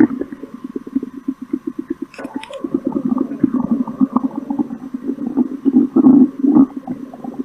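Stomach growling: a long run of rapid low rumbling pulses, with a brief sharp crackle about two seconds in.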